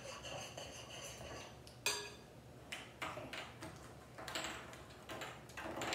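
Scattered light clinks and knocks of bowls, bottles and caps being handled on a tabletop during slime-making, with a sharper knock about two seconds in.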